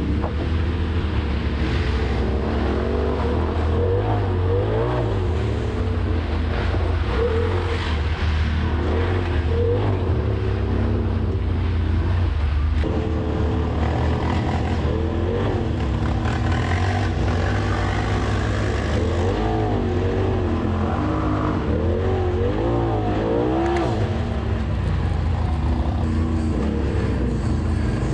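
Polaris RZR Turbo side-by-side engine running under way on a dirt trail, its pitch rising and falling with the throttle over a constant low rumble.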